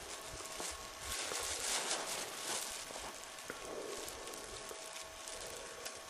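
A clear plastic bag crinkling and rustling as it is handled, in uneven crackly patches, over a faint steady whine.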